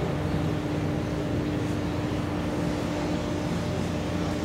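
Ship diesel engines running with a steady drone and an even hum, as a tugboat tows a patrol vessel on a line.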